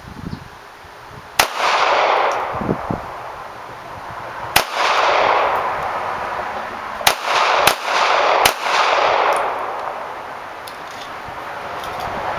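Five pistol shots from a Colt Government Series 80 .380 ACP firing Tula steel-case ammunition, unevenly spaced with three coming quickly near the middle. Each shot is followed by a long echo.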